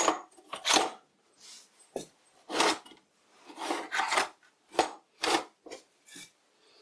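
Small brass and steel pieces being handled and shuffled about in a box, a string of short scraping and rubbing noises about one or two a second.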